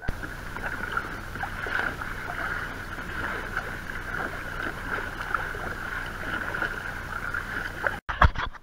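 Kayak being paddled at sea: double-bladed paddle strokes splashing and water rushing along the hull, a steady watery noise. About eight seconds in it breaks off, with a few sharp knocks.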